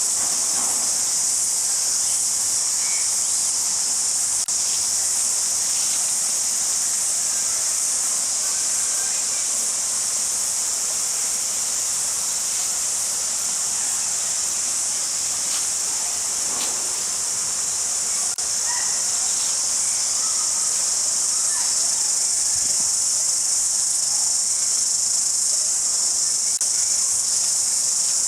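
Crickets chirping in a dense, steady chorus: a continuous high-pitched trill that never lets up.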